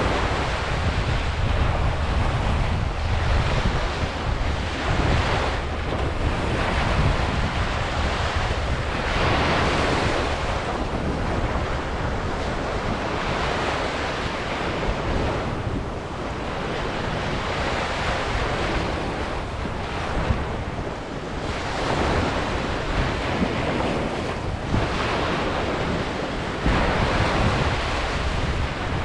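Ocean waves breaking and washing up a beach, rising and falling every few seconds, with a low rumble of wind on the microphone.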